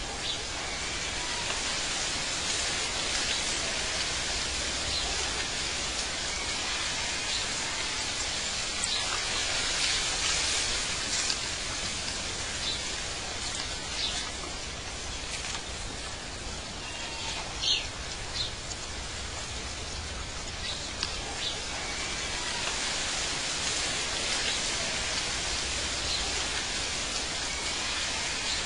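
Steady hiss of ambient noise, like rain or running water, with a few short high chirps here and there.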